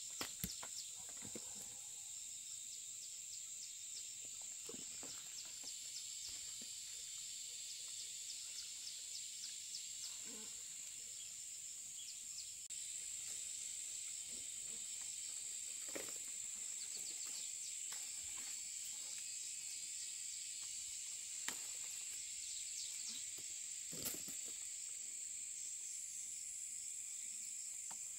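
Steady high-pitched buzzing of insects, a little louder from about halfway through, with scattered light clicks and snaps.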